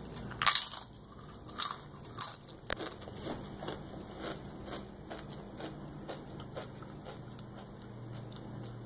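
A tortilla chip crunching as it is bitten and chewed. A few loud crunches come in the first three seconds, then quieter, steady chewing.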